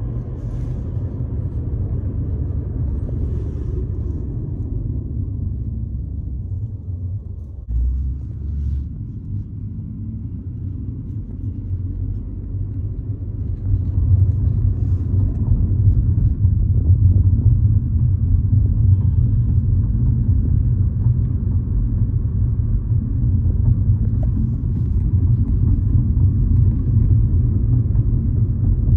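Low, steady rumble of a car's road and engine noise heard from inside the moving car, getting louder about halfway through.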